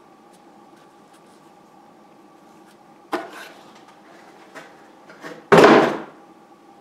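Handling noise over a faint steady hum: a sharp click about three seconds in, then a louder short knock and rustle about five and a half seconds in, as the phone is turned about in the hand.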